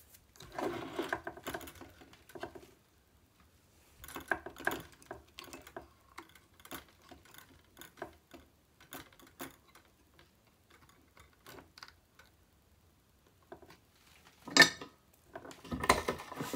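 Handling noise from a loaded Stratocaster pickguard being lifted and turned on a wooden bench: scattered clicks, taps and light rattles of its pots, switch and wires, with a sharper knock near the end.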